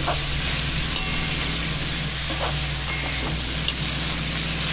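Shredded cabbage and mixed vegetables stir-frying in a large steel kadhai: a steady sizzle, with a metal spatula scraping and clicking against the pan a few times as the vegetables are tossed.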